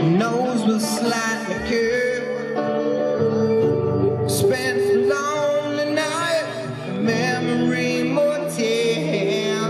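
Live rock band playing the quiet opening of a song: acoustic guitar strumming under a male voice singing, with the rest of the band playing along.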